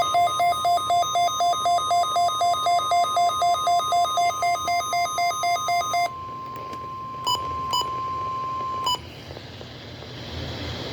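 NOAA Weather Radio's steady 1050 Hz warning alarm tone, sounding for about nine seconds as part of a required weekly test. Over its first six seconds a weather alert receiver's alarm beeps rapidly, about four beeps a second. A few short beeps follow before the tone cuts off, leaving radio hiss.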